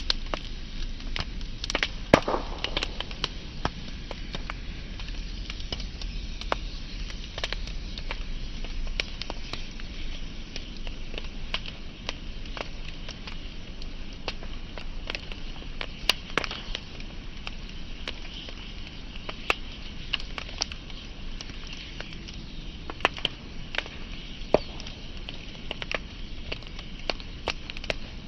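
Wood fire burning with a steady hiss and irregular crackles and sharp pops, a few of them louder.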